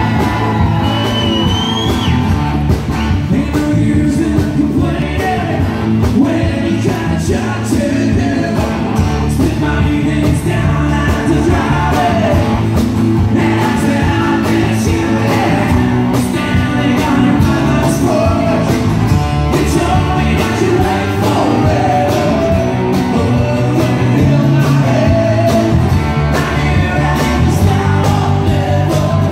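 Live country-rock band playing: electric and acoustic guitars, electric bass and drums, with a man singing lead through the PA.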